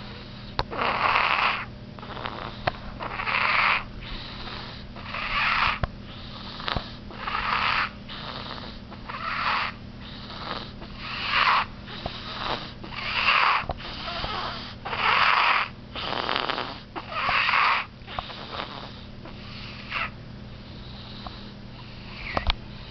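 Sleeping baby snoring, one noisy breath about every two seconds, the snores growing fainter over the last few seconds.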